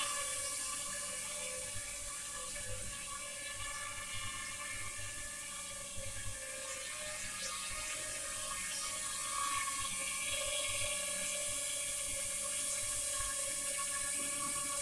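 Tello toy quadcopter's four small propellers and motors whirring steadily as it hovers and flies slowly, a continuous buzzing hiss with a layered whine.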